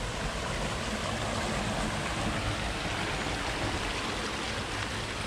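Steady rush of water flowing in a rice-field irrigation channel.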